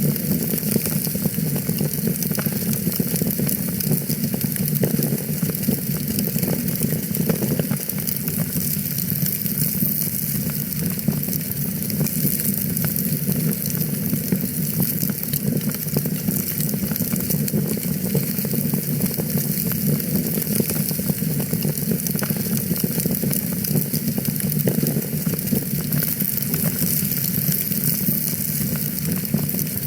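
Wood fire burning in a fireplace, crackling steadily: a constant rush of flame with many small pops and snaps.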